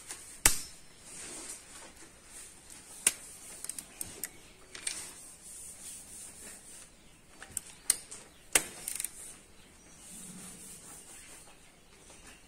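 Metal clicks and rubbing from a wrench fitted with a torque-angle gauge as it is set onto and turned on the cylinder-head bolts of a Kia G4GC engine, during the final 65-degree angle-tightening step. A few sharp clicks stand out, about half a second in, around three seconds and near eight and a half seconds.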